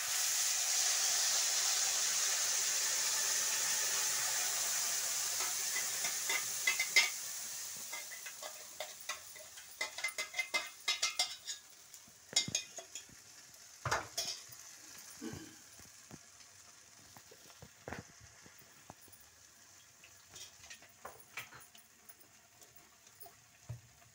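Ground masala paste hitting hot mustard oil in a steel kadai: an instant hard sizzle that holds for several seconds, then dies down over the next few. After that a spoon scrapes and clicks against the kadai as the frying paste is stirred.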